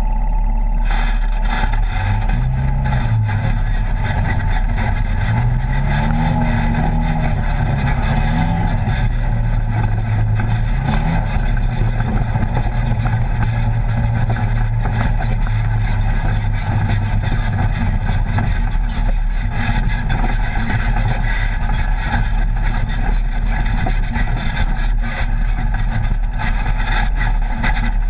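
Polaris RZR side-by-side's engine running on board while driving a rough dirt trail. The revs rise and fall repeatedly over the first ten seconds or so, then hold steady, all under a constant rush of wind and trail noise.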